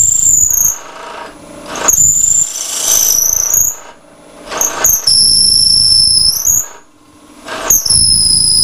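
A 10 mm lip-and-spur (brad point) drill bit screeching as it bores into spinning laburnum on a wood lathe, fed from the tailstock. The high, steady squeal comes in repeated spells of a second or two, breaking off and rising in pitch each time the bit is drawn back to clear the swarf.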